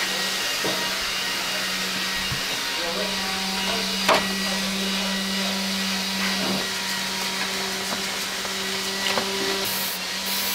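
Solvent parts washer running: a steady pump hum under the hiss of degreaser pouring and splashing into the tub. A few sharp clinks of metal parts break it, the loudest about four seconds in, and a short burst of aerosol spray comes near the end.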